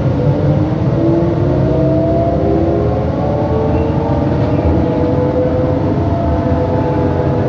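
2007 New Flyer E40LFR electric trolleybus under way, its traction motor and drivetrain whining in several tones that rise slowly as it gathers speed, over a steady rumble of road noise.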